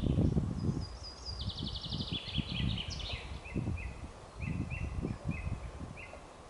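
A songbird singing in a spring forest: a quick trill that steps down in pitch, followed by a run of short repeated chirps. Irregular low rumbling thumps sound underneath, loudest in the first second.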